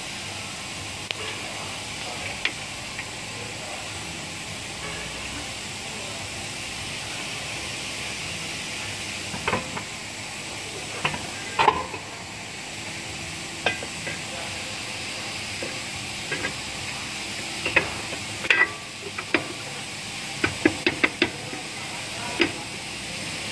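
Scattered metallic clinks and knocks from work on a car's rear drum brake as the drum is refitted over the new brake shoes, few at first and more frequent near the end, over a steady workshop hiss.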